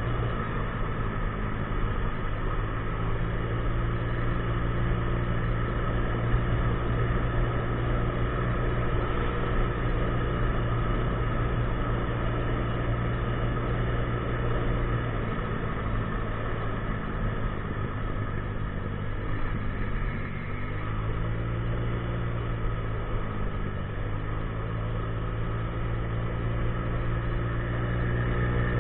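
50cc scooter engine running while riding, a steady drone over road and wind noise. About two-thirds of the way through, the engine note sags and then climbs again.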